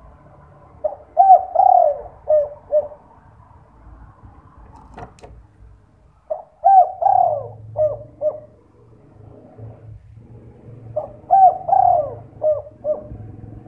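Spotted dove (derkuku) cooing, in the two-'kuk' song type. It gives three song phrases about five seconds apart, each a quick run of arching coos that ends in short notes. A single faint click comes between the first and second phrases.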